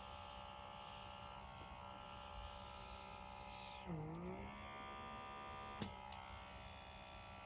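A battery-powered blackhead pore vacuum runs with a faint, steady motor whine while its suction cup works on the skin of the nose. Its pitch sags briefly and recovers about four seconds in, and there is a single faint click near six seconds.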